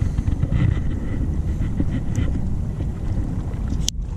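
Wind buffeting the microphone as a steady low rumble, with a few faint rustles and ticks on top and a brief sharp click near the end.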